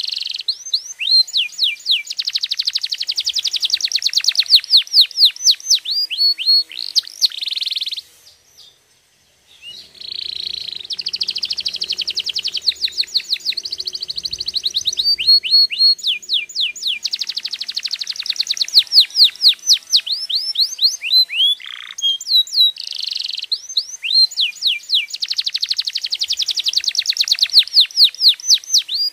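Domestic canary singing: fast rolling trills alternating with runs of repeated sweeping whistled notes, with a brief pause about eight seconds in.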